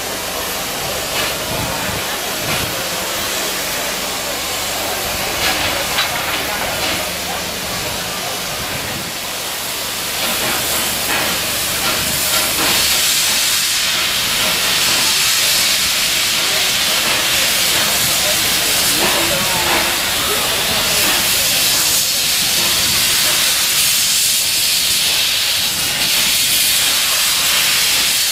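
Loaded passenger coaches rolling by on rails with scattered wheel clicks. About ten seconds in, a small steam locomotive's loud, steady hiss of escaping steam rises and holds.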